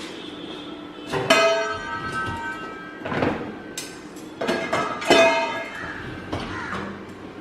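Metal dishes and vessels clanking as they are set into a dishwasher rack: about four knocks a second or two apart, each leaving a brief bell-like ring.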